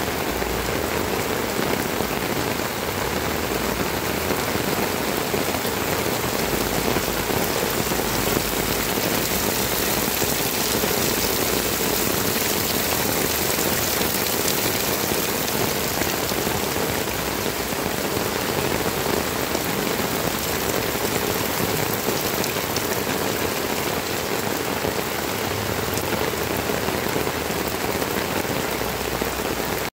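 Heavy rain falling steadily: a dense, even hiss of a downpour that holds without a break.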